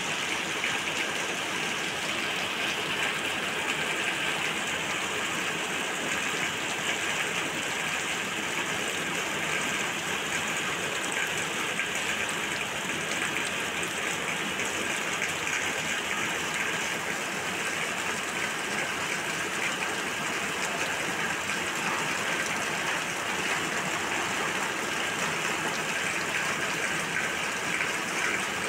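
Heavy rain falling steadily, a continuous even hiss of a downpour.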